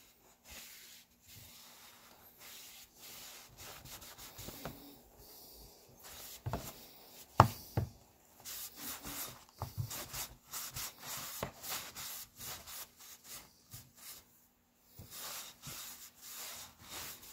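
Cloth wiping and rubbing along a stained wooden pick-axe handle in repeated short strokes, with one sharp knock of the wood about seven seconds in.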